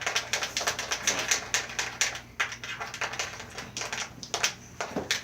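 A utensil stirring a shampoo-and-salt slime mixture in a container, making rapid, irregular clicks and taps against the container.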